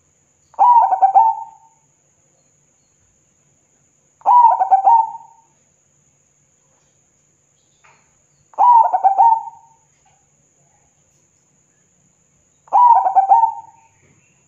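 Zebra dove (perkutut) singing: four short cooing phrases, each about a second long, repeated about every four seconds.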